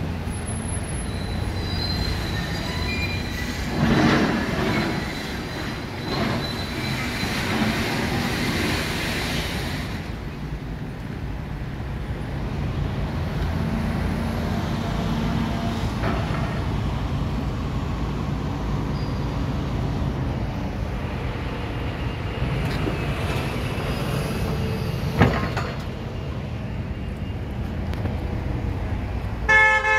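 Street traffic rumble on wet roads, with a thin high squeal over the first several seconds and a vehicle horn sounding briefly at the very end.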